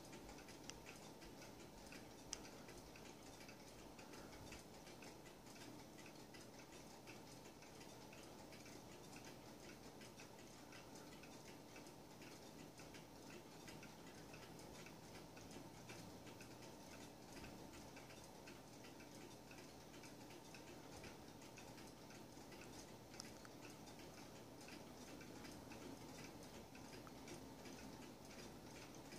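Carved wooden weight-driven cuckoo clock ticking: a faint, steady, even tick-tock of its pendulum escapement.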